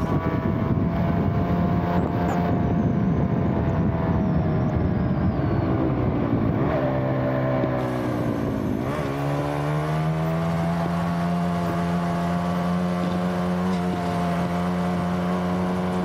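Small motorcycle engine running while the bike rides up a steep concrete road. Its note sags lower about seven to nine seconds in, then climbs back and holds steady.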